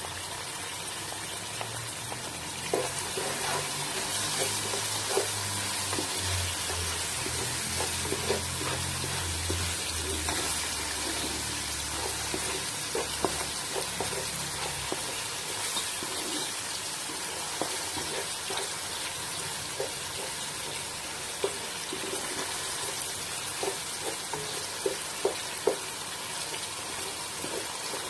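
Tomato paste and chopped vegetables sizzling in oil in a cooking pot, with a spoon clicking and scraping against the pot now and then as it is stirred.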